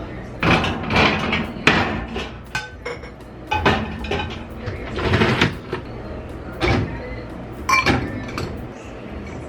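Household clatter: a run of irregular knocks and clinks from objects being handled and set down, a few of them ringing briefly.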